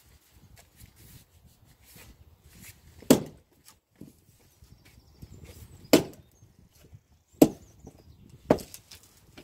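Splitting maul chopping into a cypress firewood round: four sharp blows, the first about three seconds in and the last two close together near the end.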